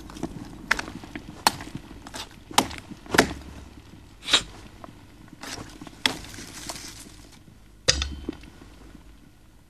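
A butcher's knife hacking and cutting through a raw carcass's ribs and meat: irregular sharp chops and knocks about every half second to a second, with a heavier thud near the end.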